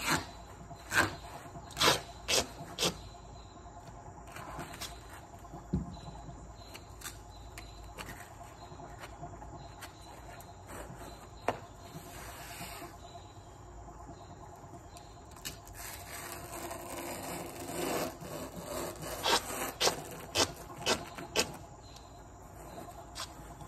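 Hand work on foam padding for concrete pool stairs: intermittent rubbing and scraping, with clusters of sharp clicks and knocks in the first few seconds and again near the end, and a longer stretch of rubbing shortly before.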